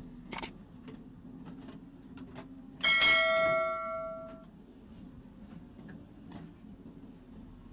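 A single sharp metallic clang that rings on with a clear bell-like tone, fading out over about a second and a half, over a low steady hum.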